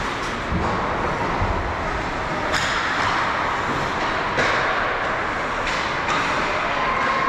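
Ice hockey play: a steady scrape of skates on the ice, broken by a few sharp knocks of sticks and puck.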